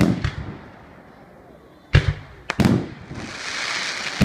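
Aerial fireworks shells bursting: sharp bangs near the start, about two seconds in and again half a second later, then a hiss lasting over a second, with another bang near the end.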